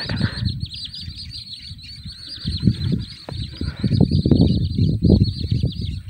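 Rapid, high-pitched chirping that goes on all the way through, many short falling notes in quick succession. Under it, irregular low buffeting on the microphone, heavier in the second half.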